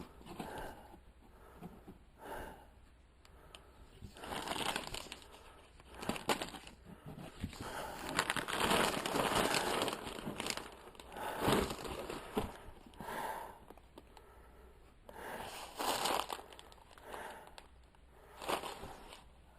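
Packaging rustling and crinkling in irregular bursts as a package's contents are dug out and unwrapped by hand.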